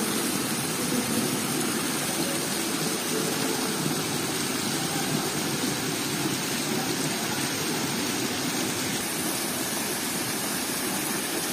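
Water-wall fountain: water falling in many thin streams down a textured stone wall and splashing into the pool at its foot, a steady, even splashing.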